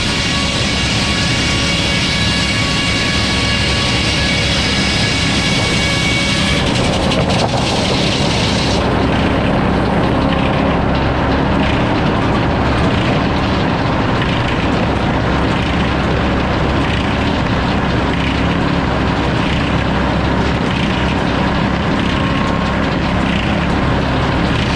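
Sawmill running under power during log sawing. A high steady whine over the machine noise fades out about seven to nine seconds in, leaving a steady mechanical running sound with an even pulsing.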